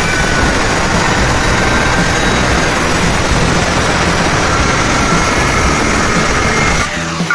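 Angle grinder with a cutting disc running at full speed and cutting through a ceramic tile: a loud, steady grinding with a high motor whine. Near the end the sound drops off sharply.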